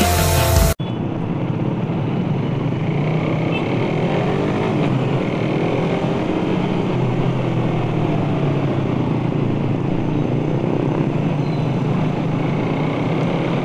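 Rock music cuts off just under a second in, giving way to a Suzuki Satria F150 motorcycle riding in traffic: its single-cylinder engine running, the revs rising and falling a few times, under steady road and wind noise.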